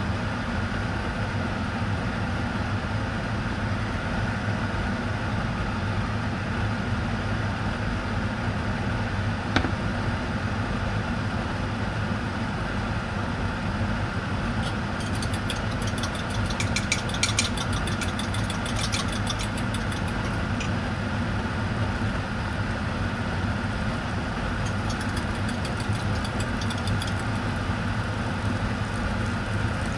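Butter sizzling as it melts and foams in a nonstick frying pan, over a steady low hum. Short runs of quick clicking come about halfway through and again near the end.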